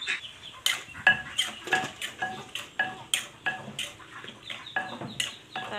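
Metal wash bowl knocking and ringing as food is stirred and washed in it by hand, a steady run of short clinks, about two or three a second, each leaving a brief ring.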